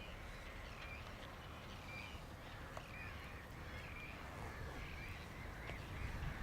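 Birds calling, a faint run of short repeated calls, about two a second.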